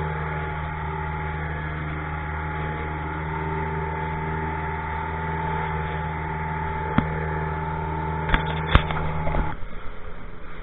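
Small boat's motor running steadily under way, a droning hum over the rush of water along the hull, with three sharp knocks in the last few seconds. Near the end the hum stops and gives way to an uneven rush of wind and water.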